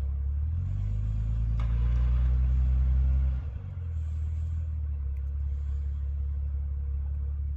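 Off-road vehicle's engine idling, revved and held higher for about three seconds, then dropping back to idle.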